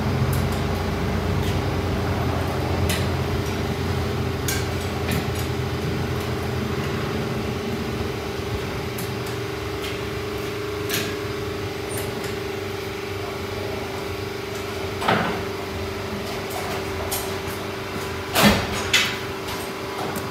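Tire-shop work at a tire changer: a steady machine hum under scattered clicks and metal clanks as a tire is worked onto a wheel. A low rumble fades over the first few seconds, and there are a few louder bangs about fifteen seconds in and near the end.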